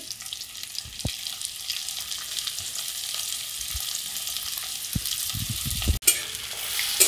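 Freshly added chopped onions sizzling in hot mustard oil in a kadai: a steady frying hiss with a few soft knocks. The hiss breaks off for an instant about six seconds in and comes back louder.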